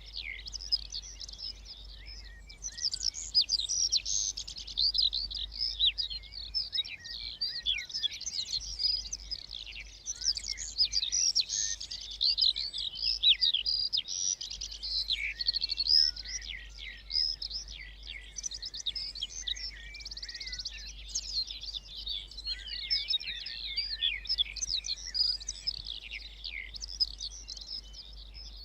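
Many small songbirds singing at once in a dense chorus of high chirps and trills that never lets up.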